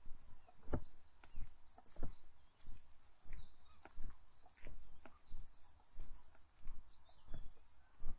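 Footsteps of a walker, about three steps every two seconds, with small birds chirping in quick runs of short high notes over them.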